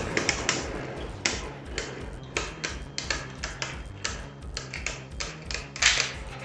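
Two Beyblade Burst spinning tops clashing in a stadium: sharp, irregular clicks and clacks as they hit each other, a few times a second, with the hardest hit near the end.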